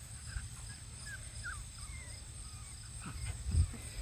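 Beagle puppies giving several faint, short squeaks in the first couple of seconds, over a steady high insect trill and a low rumble.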